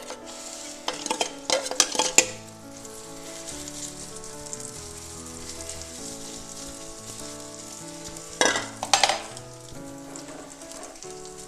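Egg and bread batter sizzling steadily in ghee on a hot tawa. Clusters of scraping clicks come about a second in and again about eight seconds in, as the batter is spread across the pan.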